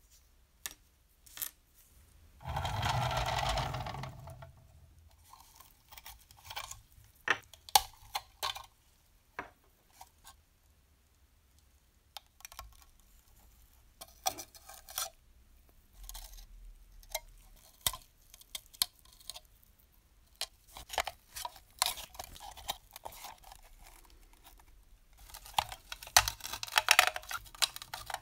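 Rusty sheet-metal model locomotive parts being handled and worked apart by hand: scattered sharp metal clicks and knocks, a rough noise lasting about a second and a half near the start, and a dense run of scraping and clicking near the end.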